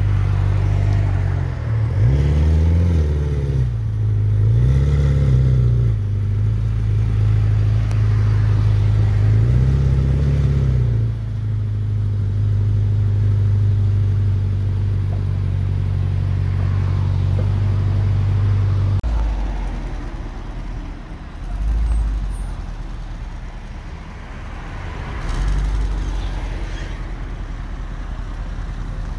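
Ferrari F8 Tributo's twin-turbo V8 idling, blipped three times in short revs that rise and fall, the first two close together and the third a few seconds later. About two-thirds of the way through, the idle stops abruptly, and a lower, quieter engine rumble follows with two brief swells.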